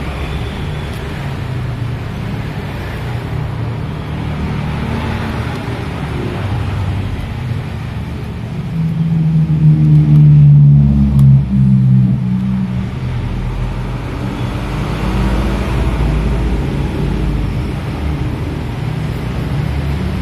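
Steady motor-vehicle engine rumble, swelling louder for a few seconds about nine seconds in as a vehicle passes close by.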